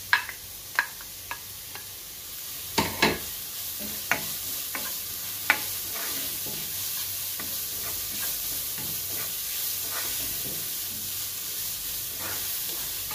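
Grated carrot tipped from a plate with a spatula into a non-stick pan of sautéing onions, with a few sharp taps of the spatula in the first seconds. The vegetables are then stirred and sizzle steadily in the hot oil.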